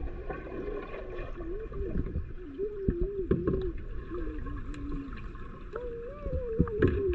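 Swimming pool water heard through an underwater camera: muffled low rumble with scattered sharp clicks and a wavering tone that rises, dips and breaks off every fraction of a second.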